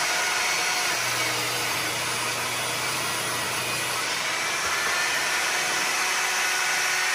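SKIL table saw running steadily, its spinning blade cutting through wood.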